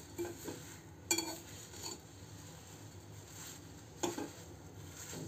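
A steel spatula stirs thin flattened rice (poha) dry-roasting in a steel pan on a very low flame. The stirring is faint, with a sharp scrape of metal on the pan about a second in and again about four seconds in.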